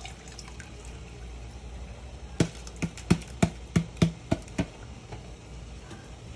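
A quick run of about nine sharp knocks, roughly four a second, each with a short metallic ring, like a utensil tapping against a cooking pot.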